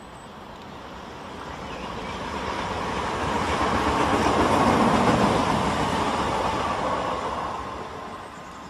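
A train passing by: a continuous running noise that builds to its loudest about five seconds in, then fades away.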